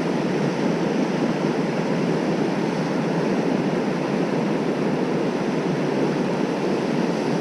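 Steady rush of water spilling over a low-head dam and running past in the river, an even noise that does not change.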